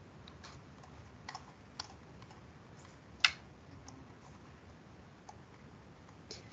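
Scattered clicks at a computer: about seven short, irregular clicks, the loudest about three seconds in, over faint room hiss.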